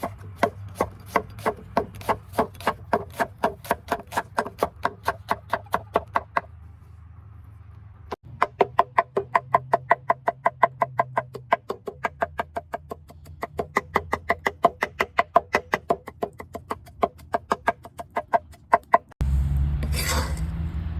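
Knife chopping fast on a wooden cutting board, even strokes at about five a second in two long runs with a short pause between. Near the end the chopping stops and a steady rushing noise takes over.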